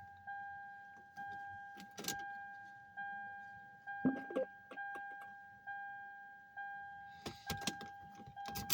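An electronic chime repeating about once a second, each ding fading out before the next, with a few sharp clicks and knocks of handling in between.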